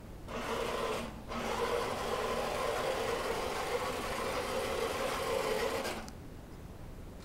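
1970s Rico Pegaso Transinter toy truck's small motor and gears whirring as it drives across a tiled floor. It breaks off briefly about a second in, runs steadily again, and stops about six seconds in.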